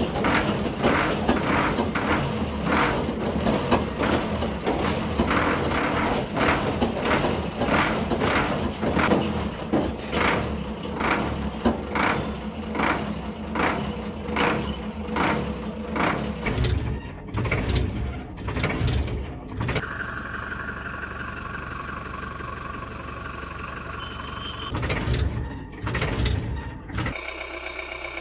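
Truck engine sound effect laid over the toy play, pulsing about twice a second for most of the stretch, then turning to a steadier tone near the end.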